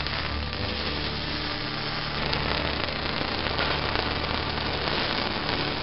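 Motoman welding robot's arc welding torch running a weld, a steady crackling hiss from the arc.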